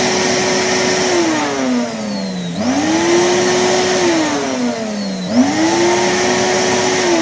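Henry vacuum cleaner motor cutting in and out: it runs steadily, then winds down with a falling whine, starts up again with a rising whine, and does so three times, because the worn on/off switch won't stay pressed in and loses contact.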